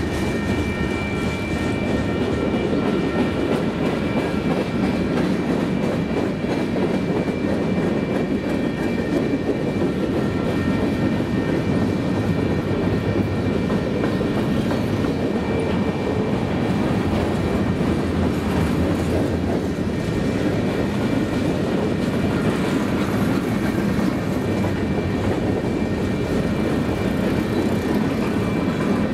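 Cars of a long mixed Union Pacific freight train rolling steadily past on the rails, with a thin, steady high-pitched squeal over the running noise.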